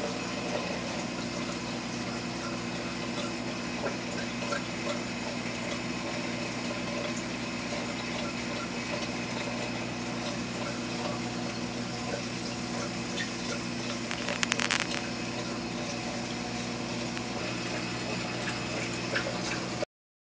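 Steady running of a 75-gallon reef aquarium's pumps and circulating water: a constant motor hum under rushing, trickling water. A short burst of clicks comes about two-thirds of the way through.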